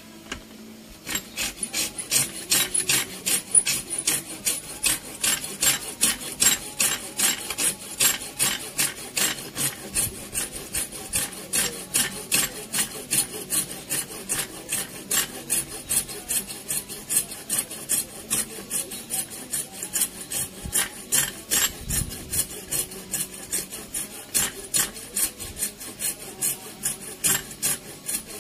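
A hand rasp filing kenaung wood in steady back-and-forth strokes, about three a second, starting about a second in.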